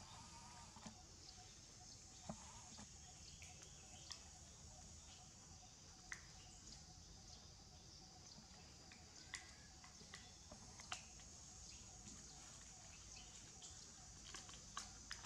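Near silence: faint outdoor background with a steady high hiss and a scattering of small, sharp ticks and clicks.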